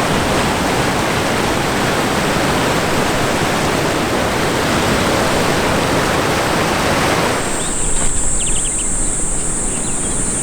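Ocean surf washing steadily on the shore for about seven seconds. It cuts off abruptly to quieter surroundings with a steady high-pitched hiss and a few faint chirps.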